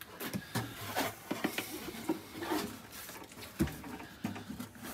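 Acoustic guitar body being handled and shifted on a padded workbench: scattered light knocks and rubbing against the wooden body, with one firmer thump about three and a half seconds in.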